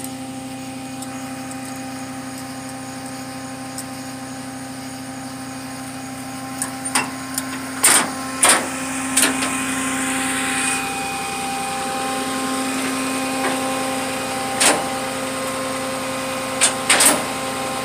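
Tow truck's engine idling steadily, with a scattering of sharp metal clanks and clicks in the second half as a wheel tie-down strap and its hooks are fitted around the pickup's tire on the steel flatbed deck.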